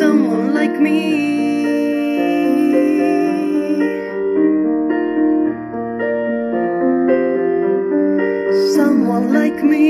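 Instrumental backing music: sustained electric piano chords under a slow melody, with a swooping pitch sweep just after the start and again near the end.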